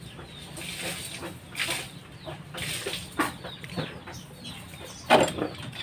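Chickens clucking in the background, with a few light metallic clicks as a loosened motorcycle flywheel nut is handled and spun off by hand.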